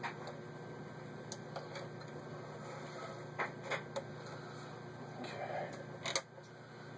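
Scattered clicks and knocks of hands working an Elna TSP 72C sewing machine while it is stopped: the stitched cloth is taken from under the foot and the stitch-selector knob is turned for the next pattern, with the sharpest click about six seconds in. A faint low hum runs underneath.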